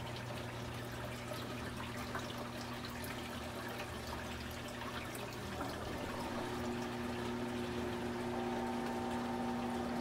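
Giantex portable washing machine draining: water pours from its drain hose into a stainless steel sink while the machine's drain pump runs with a steady hum, which grows stronger about six and a half seconds in.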